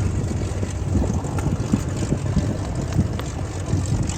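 Low, steady rumble with wind buffeting the microphone.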